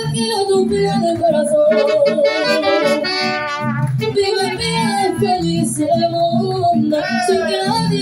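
Live mariachi band playing a dance number: a sustained lead melody over strummed guitars and guitarrón bass.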